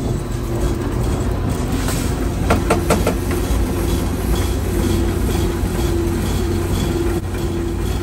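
A grain dockage tester running, shaking a wheat sample through its stack of sieves to separate out the foreign matter: a steady mechanical hum and rattle, with a few sharp clicks about two and a half seconds in.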